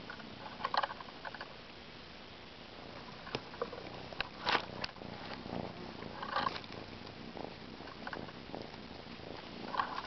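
Rustling and crackling of dry leaves and twigs on the forest floor as hands work close to the camera, in several short bursts.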